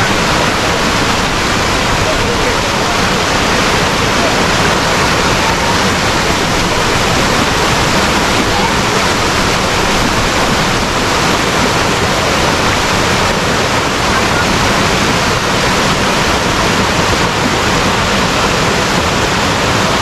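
Waterfall tumbling over rock terraces into a pool: a loud, steady rush of water.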